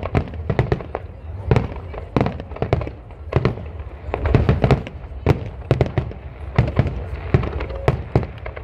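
Fireworks display: aerial shells bursting in a rapid, irregular string of sharp bangs, two or three a second, over a steady low rumble.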